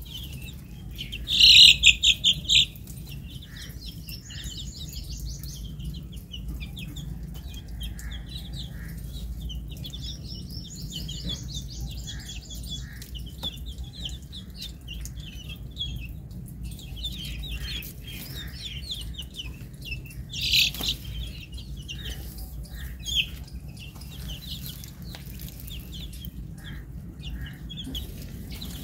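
Young chickens peeping: a steady stream of short, high-pitched cheeps, with a loud run of rapid peeps about two seconds in and another about twenty seconds in. A steady low rumble sits underneath.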